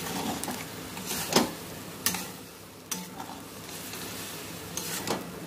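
Flat metal spatula stirring and scraping wet rice and potatoes in a metal kadai, with a few sharp clinks against the pan over a sizzle from the water just added.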